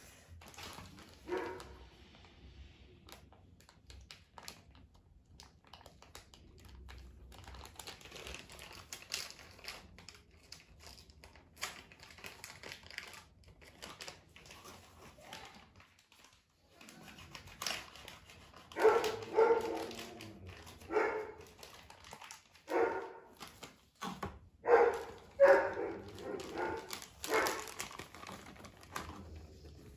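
A dog barking: one short bark early on, then a run of about a dozen short, loud barks through the second half, with softer clicks and rustles in between.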